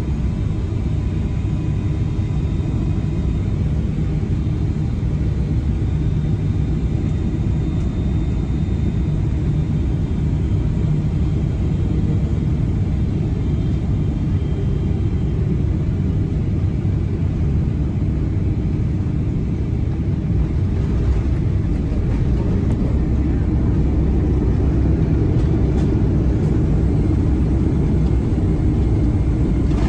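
Cabin noise beside the wing of a Boeing 777-300ER with GE90-115B engines as it touches down and rolls out on the runway: a loud, steady low rumble. Faint engine whine tones fade away about ten seconds in, and the rumble grows somewhat louder in the last third.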